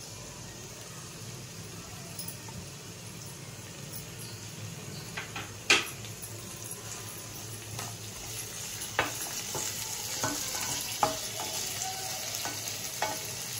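Cauliflower florets sizzling in hot oil in a nonstick frying pan while a wooden spatula stirs them. The sizzle grows louder through the second half. A few sharp knocks of the spatula against the pan sound along the way, the loudest about six seconds in.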